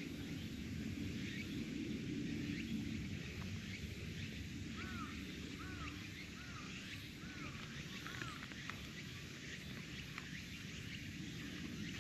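Outdoor ambience with a steady low rumble; in the middle, a small animal gives five short, evenly spaced chirping calls, each rising and falling.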